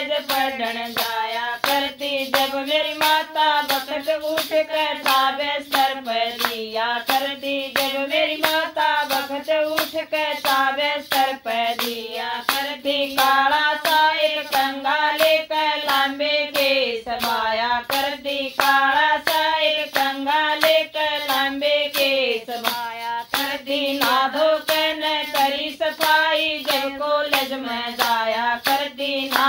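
Woman singing a Haryanvi folk song (dehati geet) to steady, rhythmic hand clapping that keeps the beat. The voice pauses briefly about two-thirds of the way through while the clapping continues.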